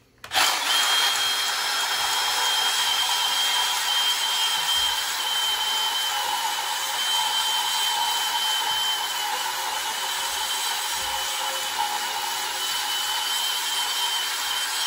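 Milwaukee cordless portable band saw starting up and cutting steadily through 2-inch black steel pipe, with a high whine over the cutting noise.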